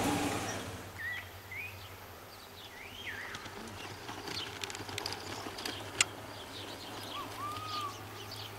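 Birds calling in open country: a few short whistled notes that slide up and down, over a faint steady hum with scattered light clicks, and one sharp click about six seconds in.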